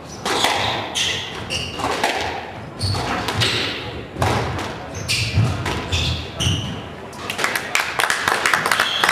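Squash rally: the ball cracking off racquets and the court walls at irregular intervals, with footsteps thudding and shoes squeaking on the wooden court floor.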